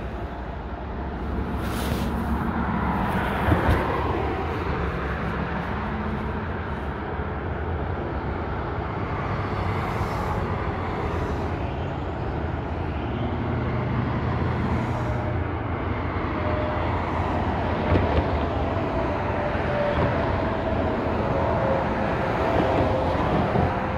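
Interstate highway traffic: a continuous wash of tyre and engine noise from passing vehicles with a low rumble, swelling and easing as they go by. A faint steady hum joins in the second half.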